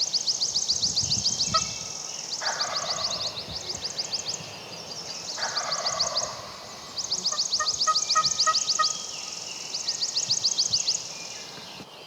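A wild turkey gobbler gobbling twice, fainter than the birdsong, about two and a half and five and a half seconds in. Over it a songbird repeats a fast, high trill in bouts of a second or two.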